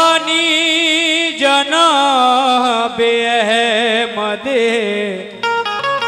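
Qawwali vocalist singing a long drawn-out phrase with no clear words over harmonium: the voice slides up into a held note, then winds through wavering ornamented runs. About five seconds in the voice drops away and short harmonium notes carry on.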